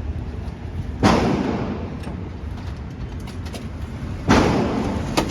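Two gunshots about three seconds apart, each a sharp crack with a long echoing tail in an indoor shooting range, over a steady low rumble. A small sharp click follows near the end.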